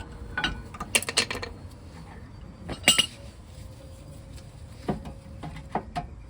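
Metal clinks and taps as an old brake pad and a G-clamp are set against a brake caliper piston: a handful of sharp separate knocks, the loudest about three seconds in.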